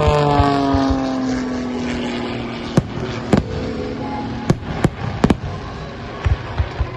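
Fireworks going off: about half a dozen sharp bangs, a few in quick pairs, over an aircraft's engine drone that slides down in pitch as it passes.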